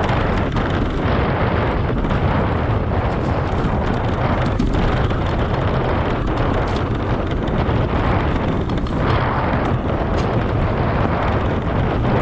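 Loud wind rumble on the microphone of a camera riding on a mountain bike over a dirt trail, with tyre noise and frequent knocks and rattles from bumps.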